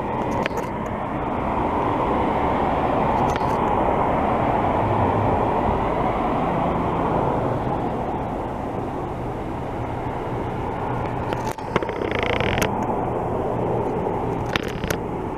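Jet airliner engines heard as it flies past: a steady rumble that swells over the first few seconds and holds. A few brief clicks sound over it.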